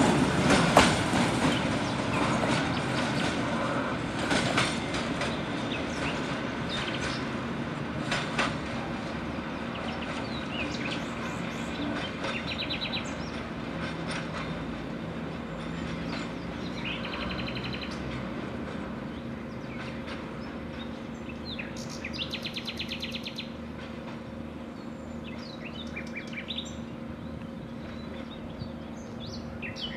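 A freight train of tank wagons and open wagons rolling away, its wheels clicking over the rail joints as it fades steadily into the distance. Birds chirp from about the middle on, with a rapid trill about two-thirds of the way through.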